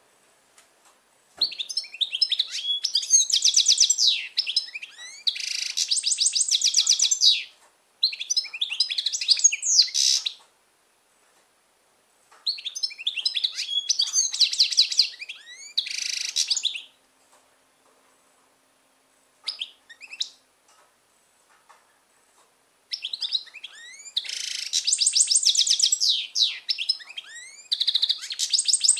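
Caged European goldfinch singing: long bouts of fast, high twittering mixed with rattling buzzy notes, broken by short pauses and a few brief single notes.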